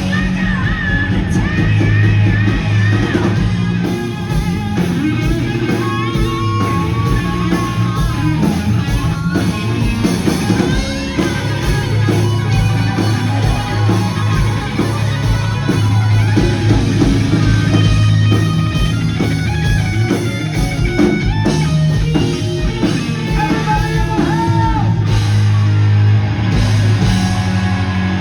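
Hard rock music: a singer over electric guitar and a drum kit, played loud and steady.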